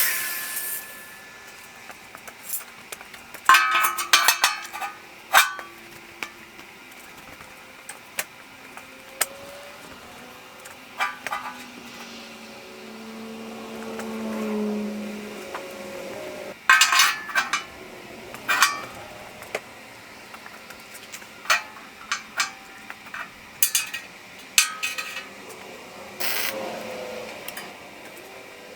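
Irregular metallic clinks and clanks, some in quick clusters, as steel pieces and hand tools are handled and set down on a metal surface.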